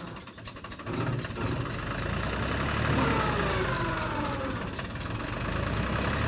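Mahindra 265 tractor's three-cylinder diesel engine running under load, picking up about a second in, as it tries to pull a trolley sunk in mud that it cannot budge.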